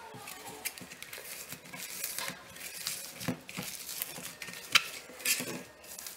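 Hands squeezing and kneading crunchy floam slime packed with polystyrene foam beads: a run of irregular crackling clicks, with one sharper pop about three-quarters of the way through.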